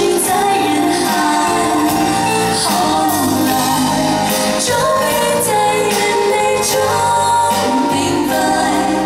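Live pop music: a woman singing lead into a microphone over a band with drums and keyboards.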